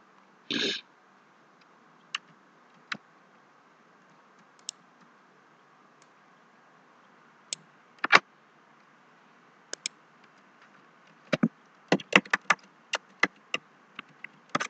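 Computer keyboard keystrokes and mouse clicks: single clicks spaced a second or more apart, then a quick run of about ten keystrokes about eleven seconds in. A brief rustle just after the start.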